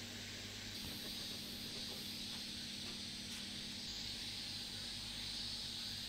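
A steady high hiss of background ambience, with a faint low hum beneath it that shifts slightly about a second in and again near the middle.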